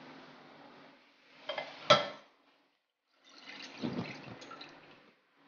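A single sharp clink about two seconds in, then coconut milk splashing as it is poured from a measuring jug into a stainless steel saucepan, with a few light knocks against the pan.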